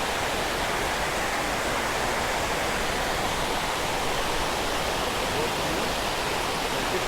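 Water pouring over a creek spillway, a steady rushing.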